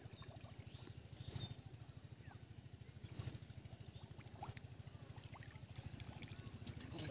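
Faint trickling and splashing of shallow pond water as hands grope in the muddy bottom for fish. A bird gives two short falling chirps, about a second and about three seconds in, over a low steady pulsing drone.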